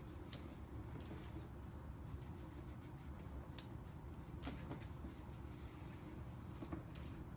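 Faint rubbing of vinyl wrap film being pressed and smoothed down onto a mini fridge's edge, with a few light ticks and a brief hiss, over a low steady hum.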